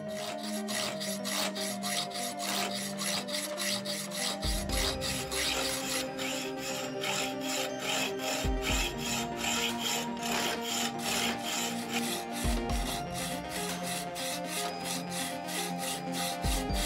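Hand hacksaw cutting through an aluminium alloy block, in a steady rhythm of strokes at about three a second. Background music plays underneath, with a low note about every four seconds.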